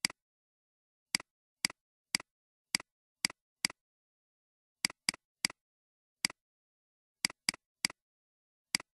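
Computer mouse button clicks, about fifteen at irregular intervals, each a quick double click of press and release, with dead silence between.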